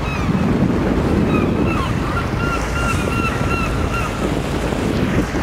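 Wind buffeting the microphone over the steady rush of water from a boat in a harbour. From about two to four seconds in, a bird calls a quick run of short repeated notes.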